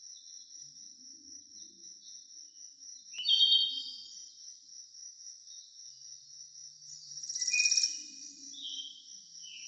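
Woodland ambience: a steady high-pitched insect trill runs throughout. Bird calls stand out about a third of the way in and again near the end, the loudest moments.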